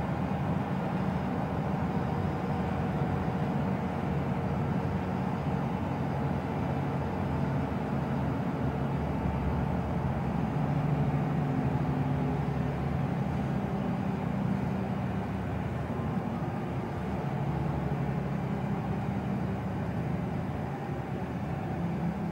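Scania Wright Solar single-deck bus travelling at a steady speed, heard from inside the passenger saloon: a continuous low engine drone with road noise, dipping slightly near the end.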